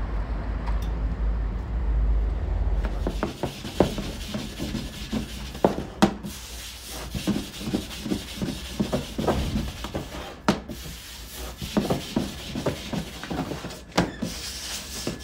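Low wind rumble on the microphone for about the first three seconds, then soft rubbing, patting and light knocks of samsa dough being worked by hand and with a wooden rolling pin on a floured wooden table.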